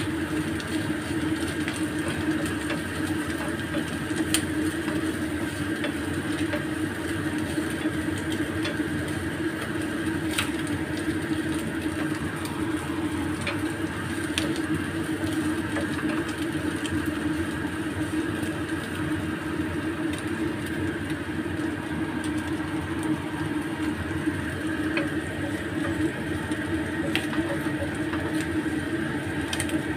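Fish and chopped chili, garlic and shallots stir-frying in a frying pan, over a steady machine-like hum. A few light clicks as the wooden spatula strikes the pan.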